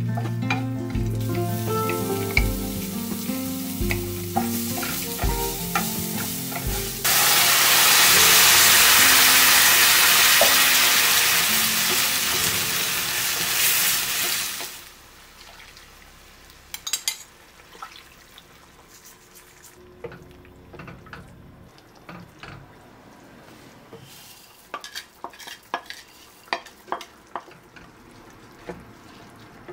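Background music with a steady beat, then cumin seeds, orange peel and crushed garlic frying in olive oil in a pan. A loud sizzle cuts in suddenly about seven seconds in and drops away about seven seconds later. It is followed by a quieter sizzle with the clicks and scrapes of a wooden spatula stirring against the pan.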